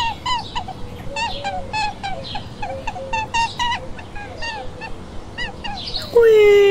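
Bird calls: a run of short, pitched calls, several each second, each rising and falling. About six seconds in, a much louder single tone cuts in and slides downward in pitch.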